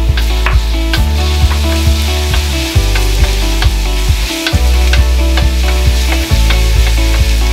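Minced garlic sizzling in hot oil in a wok while a wooden spatula stirs it, under loud background music with a bass line and a steady beat.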